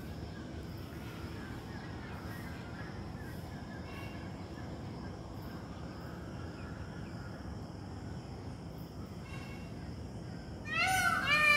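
Steady outdoor background noise with a few faint, brief bird calls. Near the end, loud background music with sliding, violin-like notes starts suddenly.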